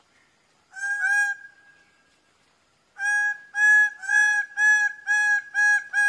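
Male greater bird-of-paradise calling loudly: two notes about a second in, then a rapid series of about seven at roughly two a second.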